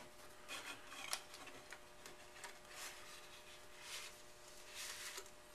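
Faint rubbing and soft scraping of a model rocket's body tube and plastic nose cone being handled and pushed together, in a few short scrapes over a low steady hum.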